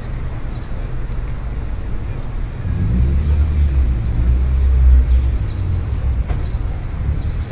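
Low rumble of distant road traffic, swelling louder for a couple of seconds in the middle before settling back.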